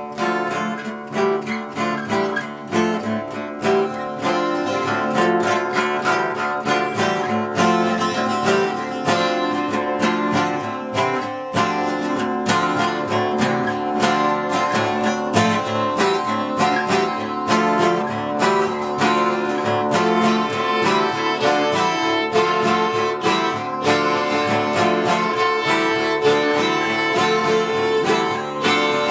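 Acoustic guitar and violin playing an improvised duet: the guitar keeps up a busy run of plucked chords and notes under a bowed violin line.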